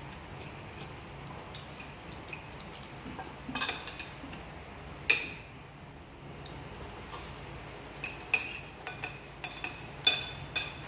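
Metal spoons clinking and scraping against ceramic plates and bowls as people eat. A few scattered clinks, the sharpest about five seconds in, then a quicker run of clinks near the end.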